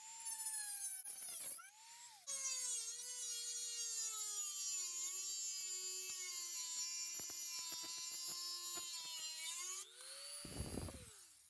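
Dremel-style rotary tool with a small abrasive disc grinding through the protruding end of a metal stud: a high-pitched motor whine that sinks in pitch as the disc bears on the metal. It breaks off briefly about two seconds in, then runs through a long steady cut with scattered ticks of the disc on the metal, and winds down near the end with a low knock.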